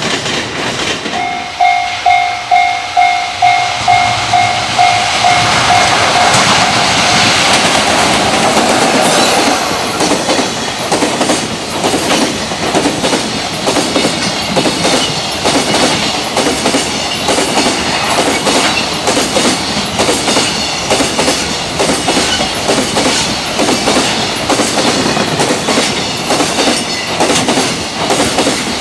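Level crossing warning bell ringing in a fast repeating ding for the first several seconds, then a long container freight train passing at speed, its wheels clattering over the rail joints in a steady rapid rhythm.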